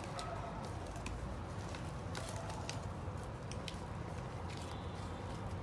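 Sticky homemade slime being scooped up and squeezed by hand: scattered faint clicks and squelches over a steady low background rumble.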